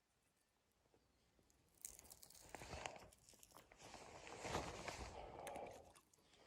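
Close crunching with many small clicks, starting about two seconds in after near silence and fading out near the end.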